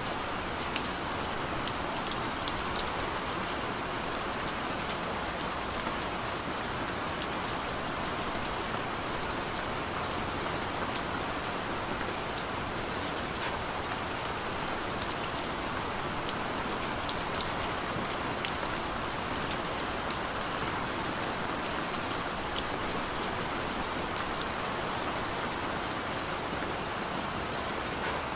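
Steady rain falling on a surface, a continuous hiss with many individual drops pattering throughout.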